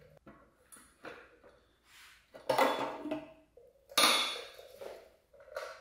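Handling clatter on a Homelite gas pressure washer as its fuel tank is opened and looked into: a few light knocks, then two louder clanks about two and a half and four seconds in, the second with a brief metallic ring.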